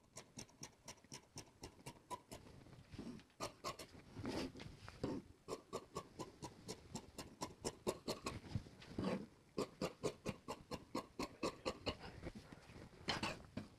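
Large tailor's shears cutting through fabric: a run of crisp snips, about three a second, with a few softer rustles of the cloth between them.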